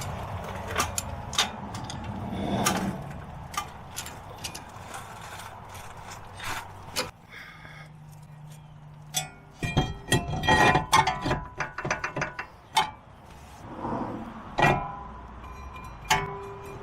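Hand tools clicking and clinking against metal parts of a car's front wheel hub, with scattered single clicks and a dense run of rapid metallic clicks and rings about ten seconds in.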